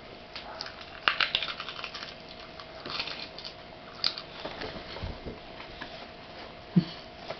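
Golden retriever nibbling corn kernels off a cob with her front teeth: quick crisp crunching and clicking bites, bunched about a second in and again around three and four seconds. A short low knock near the end.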